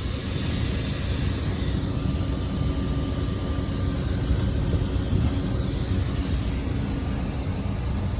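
Water-sprayed air-conditioner condenser fans running: a steady rush of air with a low hum.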